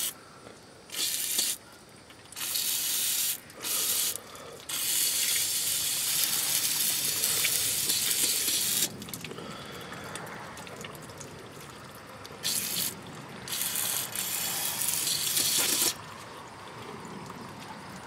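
Aerosol solvent cleaner sprayed through a straw in a string of hissing bursts, the longest about four seconds, washing sludge out of a diesel tractor's fuel filter base.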